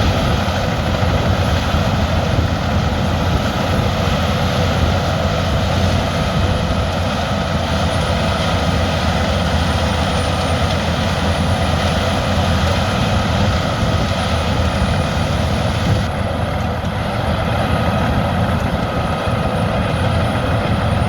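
A 700-horsepower Albach biomass wood chipper running steadily with a heavy, constant rumble, its tone shifting slightly about 16 seconds in.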